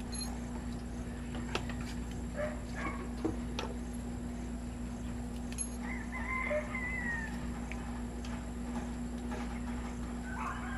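A few light metal clicks from hands and pliers working the shoe hold-down springs and pins of a drum brake, over a steady low hum. A bird calls in the background about six seconds in.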